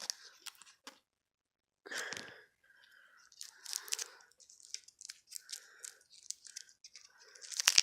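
Crinkling and tearing of cough-drop wrappers as they are worked open by hand: scattered sharp crackles and short rustles.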